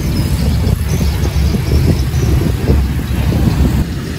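Road traffic: cars and motor scooters passing on a busy street, a steady low rumble of engines and tyres.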